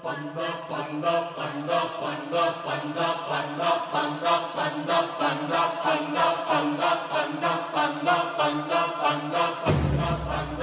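Mixed a cappella choir chanting short, quick, evenly pulsed syllables in a steady rhythm. A deep low sound joins in near the end.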